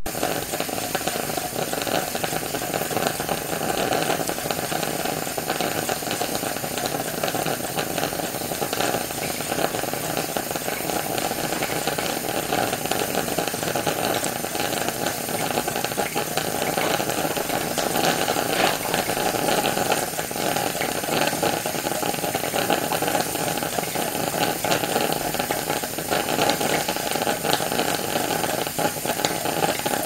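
Vintage electric moka pot brewing: a steady hiss of steam with dense sputtering and crackling from the boiling water and percolating coffee, sped up.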